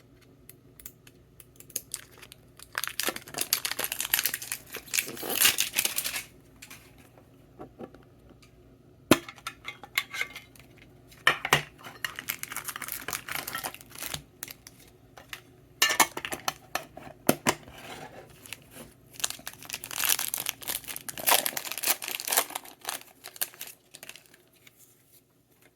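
Foil Pokémon booster pack wrappers crinkling and tearing open in several bouts, with a few sharp clicks and light knocks in between as the packaging is handled.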